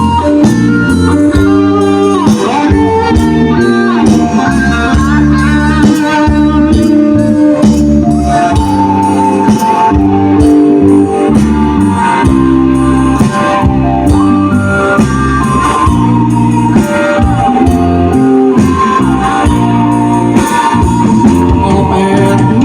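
Amplified band playing a Khmer romvong dance tune with a steady beat, in an instrumental passage between sung verses.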